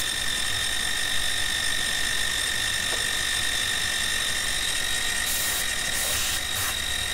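Benchtop milling machine converted to CNC, its spindle driving a 3/8-inch end mill through aluminium in a light finishing pass of about 31 thousandths of an inch: a steady whine with two high tones over the cutting noise. A few short hisses come near the end.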